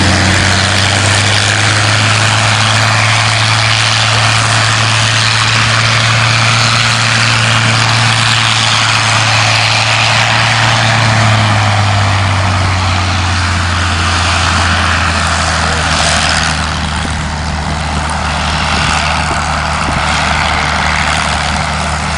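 A P-51 Mustang's Merlin V12 engine running steadily at low power on the ground. It drops a little in pitch about halfway through.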